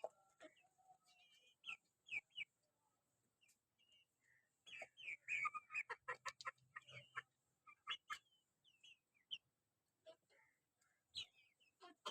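Chickens calling faintly in short, scattered clucks and chirps, with a busier flurry of calls about five seconds in that lasts around two seconds.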